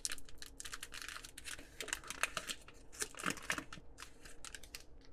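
Foil wrapper of a hockey card pack being torn open and crinkled in the hands, a dense run of crackling crinkles, as the cards are pulled out. The crinkling stops just before the end.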